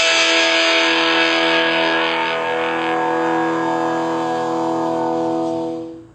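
Nokia E5 ringtone playing: guitar-style music with a touch of distortion, ending on one long held chord that cuts off near the end.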